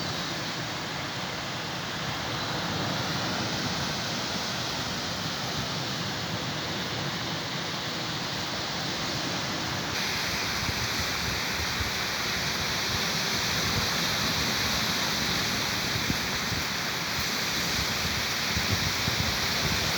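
Sea surf washing on the shore, a continuous rushing noise that turns a little brighter about halfway through.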